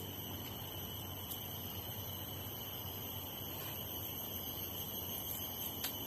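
Insects in a tropical swamp chirring continuously, a steady high-pitched drone of several held tones, over faint background hiss, with a couple of faint clicks.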